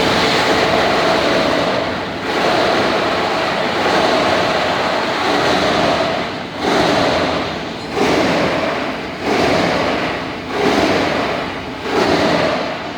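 PET bottle grinding and washing plant machinery running with a loud, steady rushing noise. In the second half it swells and dips regularly, about once every second and a bit.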